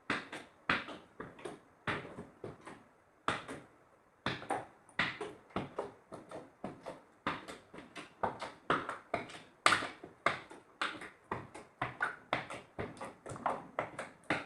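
Slime being pressed and kneaded by hand, giving a string of sharp wet pops and clicks as air pockets burst, about two to three a second with a short pause a few seconds in.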